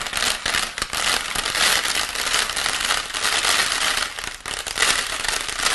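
Rice grains pattering and rattling on a sheet of A4 paper in a dense, continuous crackle: a foley imitation of rain.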